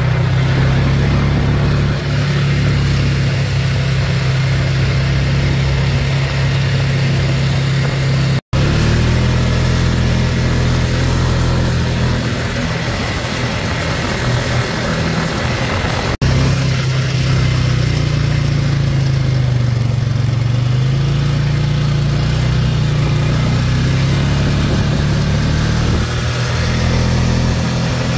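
ATV engine droning steadily while driving at speed, over a constant rushing hiss. The sound drops out briefly about eight seconds in and shifts slightly again around sixteen seconds, where clips are spliced together.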